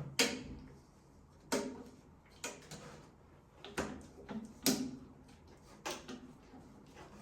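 Sharp knocks and clicks of parts and tools being handled during toilet-frame installation work, about seven at uneven intervals, some with a short hollow ring.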